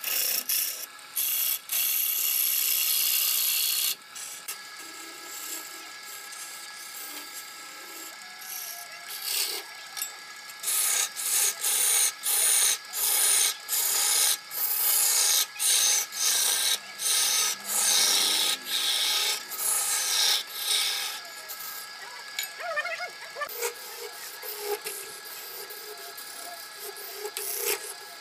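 A turning tool cutting into a large wooden spindle spinning on a wood lathe: a hissing, scraping rasp of wood being peeled away. It comes as a long cut at the start, then a run of short passes, about one every three-quarters of a second, with quieter gaps between, over the lathe's steady faint running tone.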